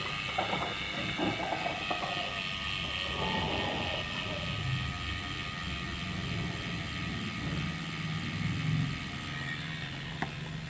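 Rear freehub of a Polygon Strattos S7 road bike (Entity wheelset) clicking as the wheel freewheels: a steady, rapid ticking of the ratchet pawls, the sound Indonesian riders call the "jangkrik" (cricket).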